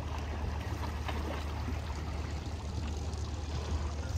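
Water splashing and trickling, with a steady low rumble underneath.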